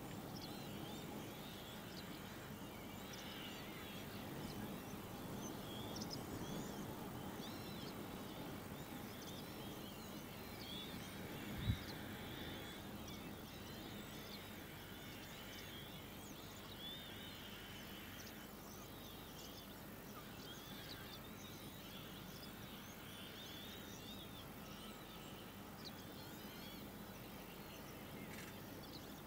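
Faint outdoor ambience: many small bird chirps and twitters throughout over a low rumble of background noise, with one brief thump about twelve seconds in.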